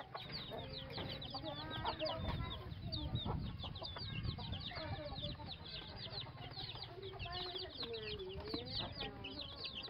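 A brood of chicks peeping constantly, many short high chirps that fall in pitch, overlapping one another as they feed. Lower clucking calls from the mother hen come in now and then.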